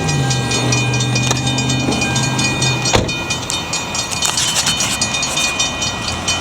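Two Western-Cullen-Hayes electromechanical crossing bells ringing with rapid, evenly repeated strikes while the crossing is activated with no train present: a malfunctioning crossing. A vehicle engine hums underneath for the first few seconds, and there is one sharp knock about three seconds in.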